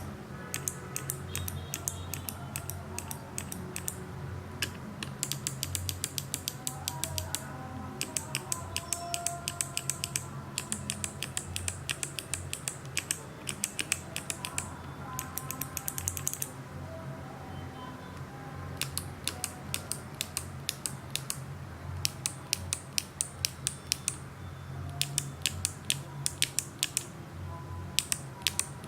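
Kailh BOX clicky mechanical keyboard switches with GMK keycaps, clicking in quick runs of keystrokes separated by short pauses, over a faint steady low hum.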